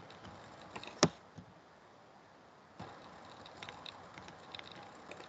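Computer keyboard keys clicking as a short label is typed, in small scattered clicks, with one much louder sharp click about a second in.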